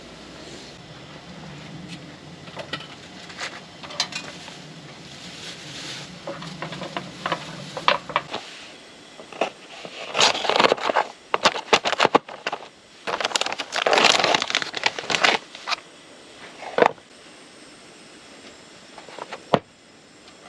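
Assorted handling noises: a run of clicks and knocks with scraping and rustling, and two longer noisy stretches about ten and fourteen seconds in. A low steady hum stops about eight seconds in.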